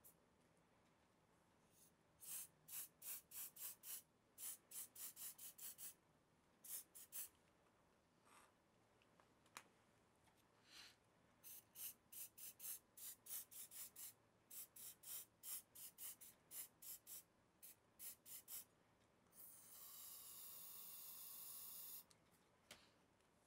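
Aerosol hairspray can sprayed in many short, quick spritzes over painted rust, laying the hairspray layer for chipping. Near the end comes one longer hiss of about two seconds.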